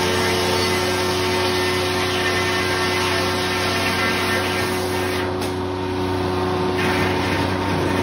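1940s Corley circle sawmill running, a steady mechanical noise with a low hum underneath. About five seconds in, the upper hiss drops away for a second or so, then comes back.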